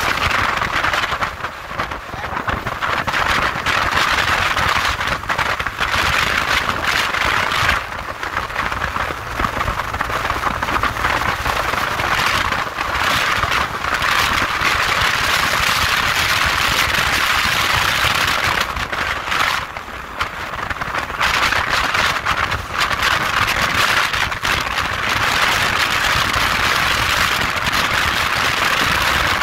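Steady rush of wind and road noise while riding a TVS motorcycle at about 60 to 80 km/h, with brief dips about two, eight and twenty seconds in.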